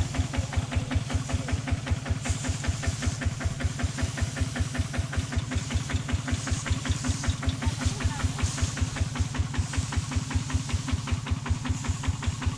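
Single-cylinder diesel engine of a two-wheel walking tractor idling, with an even chug at about four to five beats a second.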